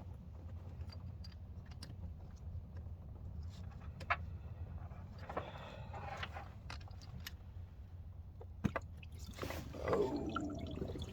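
Sharp metal clicks and knocks of hand tools working at a car's thermostat housing, scattered over a steady low hum, with a drawn-out sound falling in pitch near the end.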